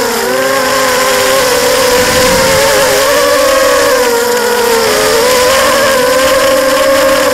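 Electric motors and propellers of an FPV racing quadcopter heard from its onboard camera: a loud, steady whine whose pitch wavers up and down as the throttle changes, dipping briefly near the start and again about five seconds in.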